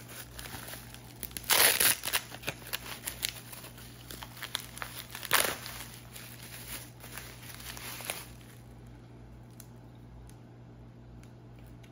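Bubble wrap crinkling and rustling as it is pulled open by hand, with two louder rustles about one and a half seconds in and about five seconds in. The crinkling stops about eight seconds in.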